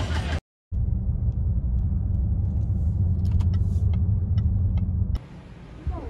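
A car driving: a steady low road rumble with a few faint scattered ticks, starting after a brief dropout near the start and cutting off about five seconds in.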